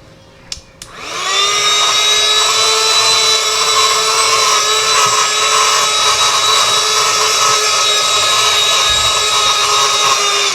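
Handheld electric motor tool spinning up about a second in, after a couple of light clicks, then running loud and steady with a high whine for about nine seconds before cutting off abruptly.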